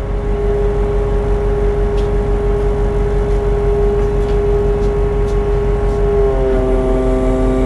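Truck engine running steadily to drive the hydraulics of the truck-mounted loader crane. About six seconds in, the pitch steps up slightly as the crane controls are worked.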